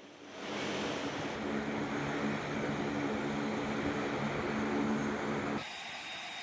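Aircraft engines running on a flight line: a steady drone with a low hum that cuts off abruptly near the end, leaving a quieter steady hiss.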